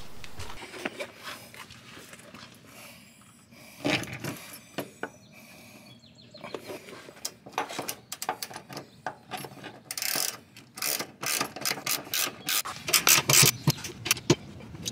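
Hand socket ratchet clicking as it drives a hex bolt up into a 3/8-inch T-nut through the van floor. The clicks are scattered at first and come in quick, steady runs in the last few seconds as the bolt is ratcheted down.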